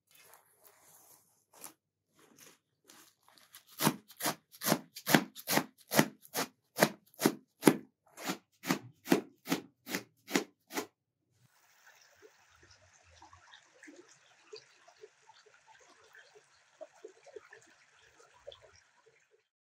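A large knife chopping fresh coriander on a metal tray, in fast, even strokes of about three a second. About 11 seconds in the chopping stops and a small stream trickles quietly.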